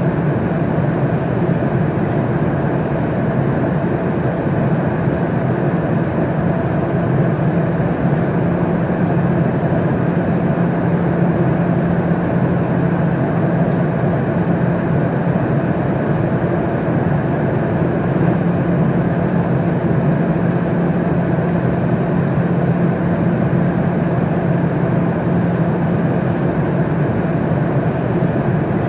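Airliner cabin noise in flight: a steady, even rush of engine and airflow noise with a low hum running under it.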